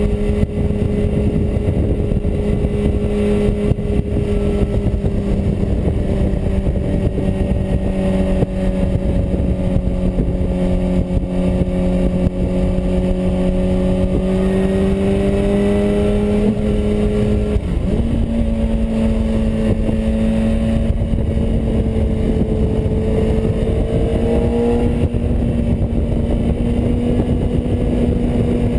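Sport motorcycle's engine running steadily at cruising speed over a rush of wind noise. Its note sags slightly in fourth gear, jumps up about two-thirds of the way through with a downshift to third, then climbs slowly as the bike speeds up.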